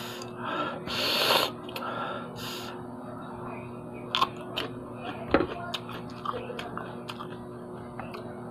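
A man sucks in and blows out sharp, breathy hisses through his mouth, reacting to a sour raw fruit. From about four seconds in he bites into a raw green pod and chews, with several crisp clicks.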